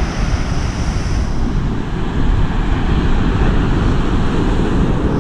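Ocean surf breaking and washing up a cobble beach, a steady loud rush of water, with wind rumbling on the microphone.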